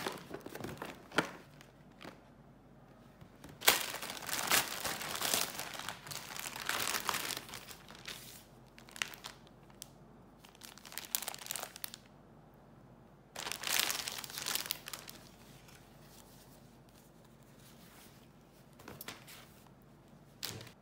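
Paper and plastic packaging crinkling and rustling in irregular bursts as a cloth tote bag is unwrapped from its clear plastic sleeve, loudest about four seconds in and again about thirteen seconds in.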